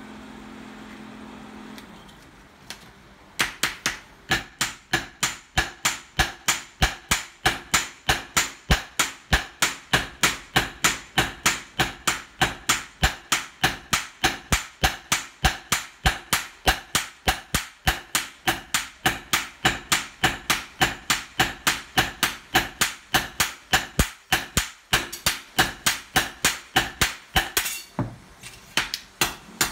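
Hammers striking a red-hot gyuto knife blade on a steel post anvil during hand forging. The blows start about three seconds in and keep up a fast, even rhythm of about three a second, pausing briefly near the end.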